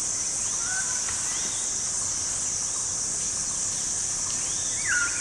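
Steady high-pitched chorus of forest insects, with short whistled bird calls over it and one louder falling bird call near the end.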